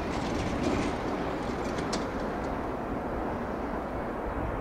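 A train running past on the line: a steady rumble and rush with a few short, high ticks in the first two seconds. The upper part of the noise dies away after that, leaving the low rumble.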